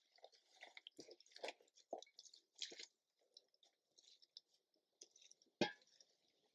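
Faint, irregular crackling and splashing as hot water is poured from a pot over birch bark, with a single sharp knock about five and a half seconds in.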